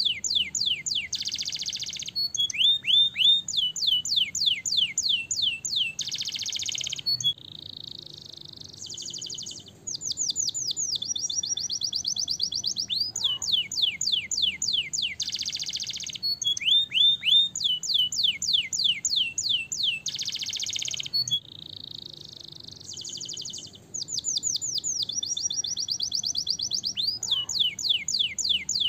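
Domestic canary singing a long song made of tours: runs of quick falling whistled notes, fast trills and buzzy rolls, with brief pauses between them. The same passage of song repeats about every fourteen seconds.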